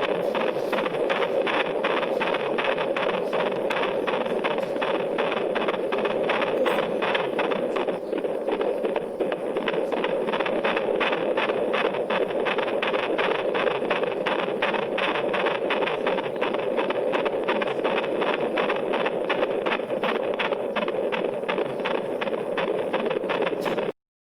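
Fetal Doppler ultrasound picking up a fetal heartbeat: a fast, even, galloping run of whooshing pulses over a constant hiss. It cuts off suddenly near the end.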